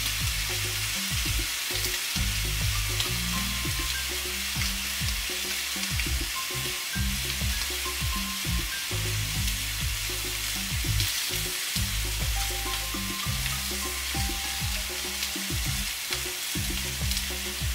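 Bone-in ribeye steak sizzling steadily in a very hot cast-iron grill pan as it sears, with an uneven low rumble underneath.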